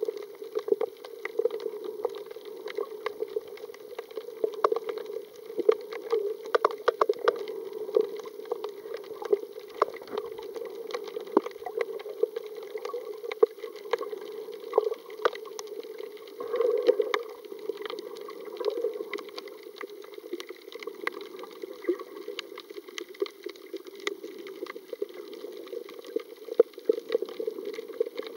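Underwater ambience heard through a camera's waterproof housing: a steady, muffled water noise with frequent irregular sharp clicks and crackles.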